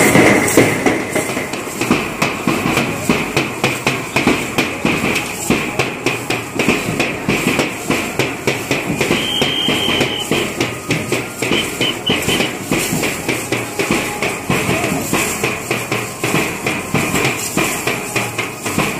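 Lezim, hand-held Maharashtrian jingle instruments with loose metal discs, clashing together in a steady dance rhythm at about three strokes a second, with drum beats under them.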